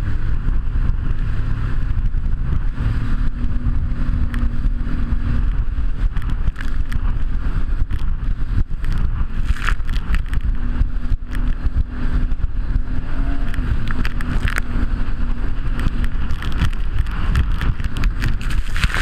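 Jet ski engine running steadily at speed, a low drone with a slightly wavering tone, under wind buffeting the microphone and frequent short knocks.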